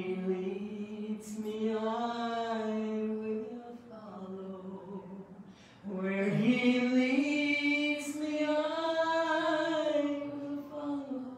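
A woman singing solo in long, drawn-out held notes. There are two sung phrases, with a softer dip between them about four to six seconds in.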